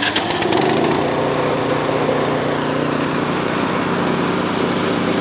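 Craftsman snowblower's 208cc engine just after a pull-start on a little choke, its speed rising in the first second, then running steadily.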